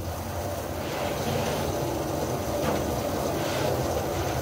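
Water jet from a pressure-washer wand spraying into a tipped-over plastic waste container, over a steady low machine hum. The spray noise swells and fades several times as the jet moves.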